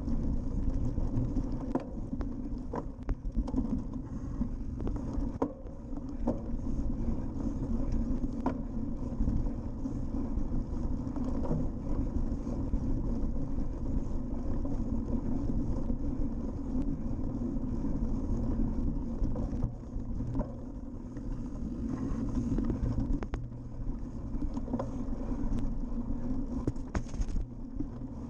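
Cyclocross bike ridden fast over bumpy grass, heard through a GoPro mounted on the bike: a steady rumble of tyres and wind with frequent small rattles and knocks as the bike jolts over the ruts.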